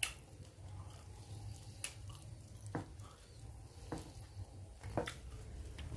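Quiet eating sounds of a person chewing a meal of rice and fish, with a few scattered small clicks, about five in six seconds, over a low steady hum.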